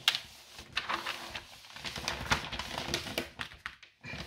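Plastic protective sheet over a diamond painting canvas rustling and crinkling as hands fold it back and smooth the canvas flat, a run of irregular soft rustles and crinkles.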